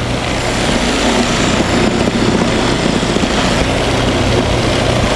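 Food processor running steadily, its S-blade churning a grainy mix of ground almonds, coconut flakes and sugar as a quarter cup of liquid is worked in for a cake batter. A constant motor hum sits under a rough, gritty churning.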